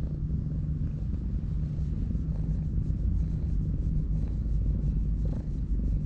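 Stray cat purring while being stroked: a steady, low, continuous rumble.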